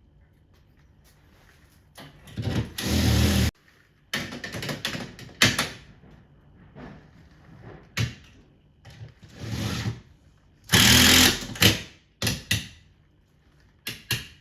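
Handheld electric power tool, such as a drill or driver used in air-conditioner installation, run in several short bursts of about a second each that stop abruptly, with knocks and handling noise between them.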